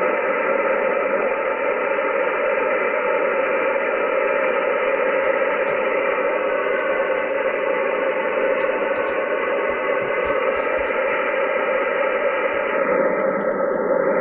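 Shortwave (HF) radio receiver playing a military signal through steady hiss and static, which the listener says is Morse code. Short runs of faint high beeps come in at the start and about 7 s in. The static narrows for a moment near the end.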